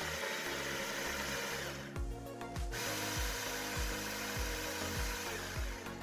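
Baratza Sette 30 burr grinder running, grinding espresso beans. It stops briefly about two seconds in, runs again, and cuts off near the end, over background music with a steady beat.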